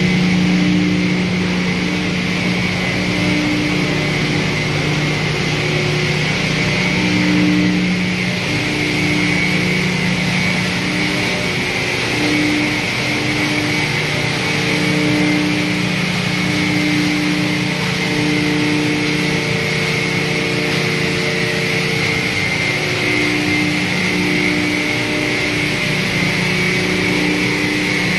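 Dual-shaft hammer mill running steadily, crushing wood chips into sawdust, with a continuous dense grinding noise over a low hum.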